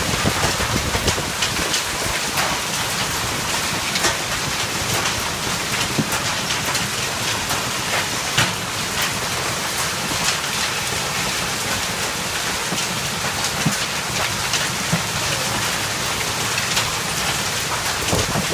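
Hailstorm: a dense, steady hiss of hail and rain coming down, with scattered sharp ticks of hailstones striking.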